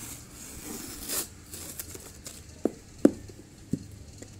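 A cardboard tablet box being handled and turned over: a short sliding rustle about a second in, then three knocks as it is set down on a hard surface, the middle one loudest.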